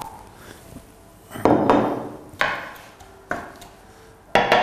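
A wooden spatula knocking against a bowl and frying pan as shrimp heads and legs are scraped into the pan: four or five sharp knocks about a second apart, each trailing off briefly.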